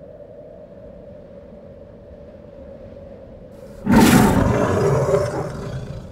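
A faint steady hum, then about four seconds in a sudden loud rumbling noise that fades away over about two seconds.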